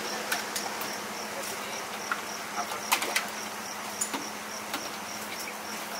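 Scattered short clicks and taps of a utensil working on a flat steel roti griddle, the sharpest about three seconds in. Under them an insect chirps steadily about three times a second over a low hum.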